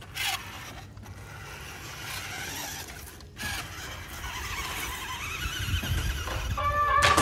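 Electric motor and gearbox of a Maisto Tech 1:10 Ford Bronco RC monster truck whining, the pitch wavering up and down with the throttle as it drives through shallow water and mud. There is a short loud burst of noise just after the start and another about three and a half seconds in.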